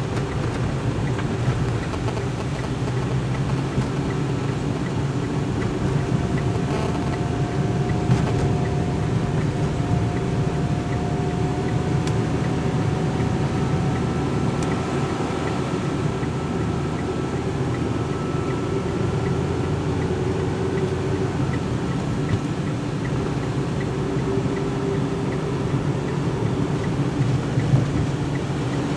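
Steady road and engine noise of a car driving, heard from inside the cabin: a constant low rumble with a faint whine through the middle.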